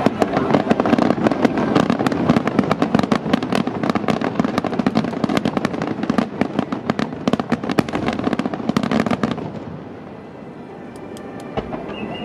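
Aerial firework shells bursting in a starmine finale: a dense barrage of bangs and crackles for about nine seconds. It then dies away, leaving a few faint pops near the end.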